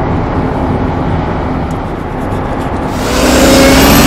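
City buses driving past at a bus station: a steady traffic rumble that grows louder about three seconds in as a bus pulls by, its engine note gliding in pitch.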